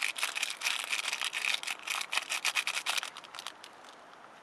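Seasoning sachet crinkling in rapid, scratchy crackles while the curry powder is shaken out of it. The crackling stops about three and a half seconds in, leaving a faint steady hiss.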